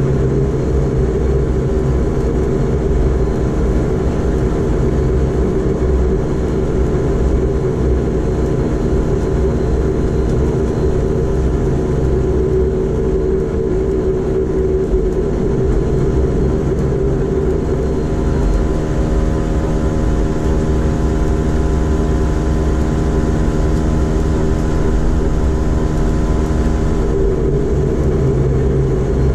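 Bombardier Q400's Pratt & Whitney PW150A turboprop engine and propeller heard from inside the cabin while taxiing: a steady, loud drone with several held tones and no change in power.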